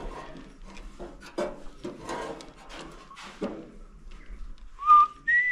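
Light knocks and clinks of hand tools and parts being handled while bolting on a part, then a person whistling a short rising note and a higher held note near the end, the loudest sound.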